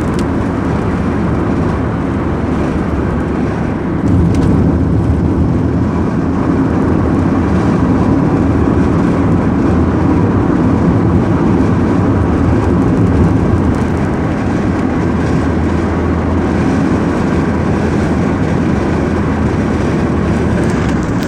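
Car driving along a road: steady rumble of engine and tyres, rising in level about four seconds in and holding there.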